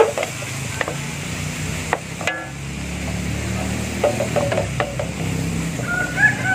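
Pork pieces sizzling in a large aluminium wok as a wooden spatula stirs them, with short scrapes and taps against the pan over a low steady hum. Near the end a rooster crows.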